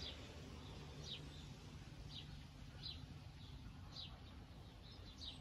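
Faint bird chirps: short high notes repeating about once a second over quiet room tone.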